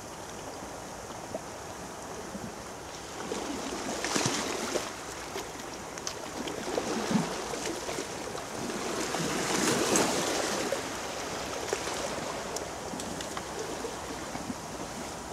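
Sea waves washing against a rocky shore, the wash swelling twice, about four seconds in and again around ten seconds, with wind on the microphone and a few small clicks.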